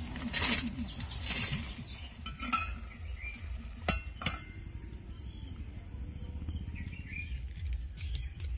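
Kitchen utensils being handled: two scraping swishes early on, then two sharp clinks about four seconds in, like a metal spoon against a dish. Faint bird chirps sound now and then over a low steady rumble.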